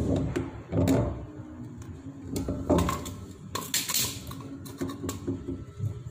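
Clicks, knocks and a brief scrape of plastic PVC pipe fittings being handled and fitted at a tank outlet valve.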